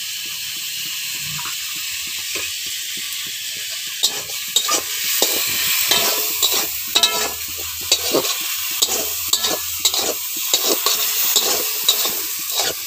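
Potato pieces frying in hot oil in a metal wok, a steady sizzle, while a metal spatula stirs them. From about four seconds in, the spatula clinks and scrapes against the pan many times.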